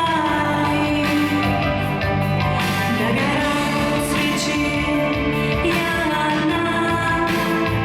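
A woman singing a Russian pop ballad with an instrumental accompaniment that keeps a steady beat, her voice carrying long, held notes.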